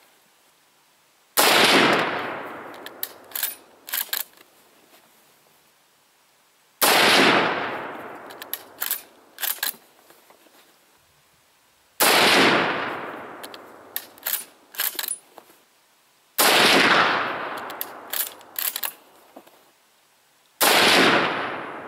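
Five rifle shots from a Mosin-Nagant M91/30 in 7.62x54R, fired about every four to five seconds, each report trailing off over a couple of seconds, with the clacks of the bolt being worked between shots.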